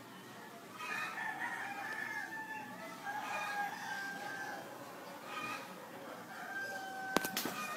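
Domestic fowl calling: several drawn-out calls one after another, followed by a few sharp clicks near the end.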